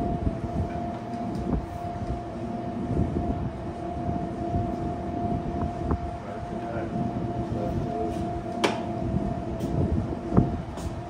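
Steady low machine rumble with a constant hum, and a couple of sharp metallic clicks near the end.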